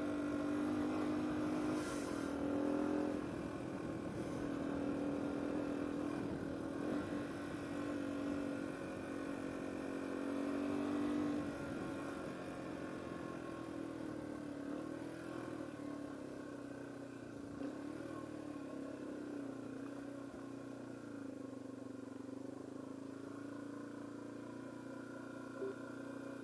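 Yamaha TW200's single-cylinder four-stroke engine running steadily as the bike rides along a dirt path, dropping to a quieter run about halfway through.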